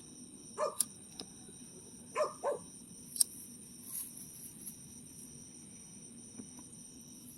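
Steady high-pitched chirping of crickets or similar insects, with a few short calls that sound like a voice or a small dog, and a few sharp clicks in the first few seconds.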